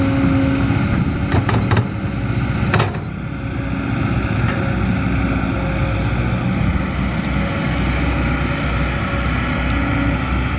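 Kobelco SK200 hydraulic excavator's diesel engine running steadily under load as it digs and swings, with a few sharp clanks in the first three seconds.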